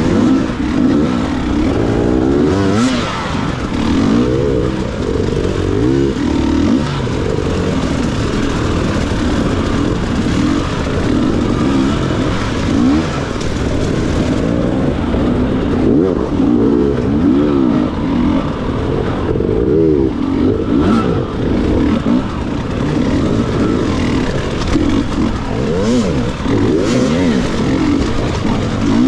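Dirt bike engine being ridden hard off-road, the revs rising and falling over and over as the throttle is worked.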